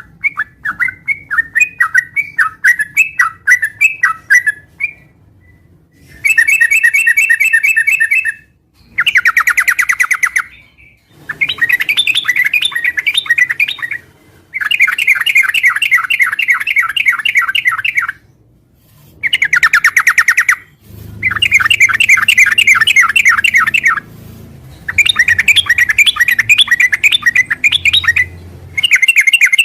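Yellow-vented bulbul (trucukan) singing loudly. It opens with a run of short, separate chirps, then gives a series of rapid chattering bursts a few seconds long with short pauses between them. A faint low hum lies under the later bursts.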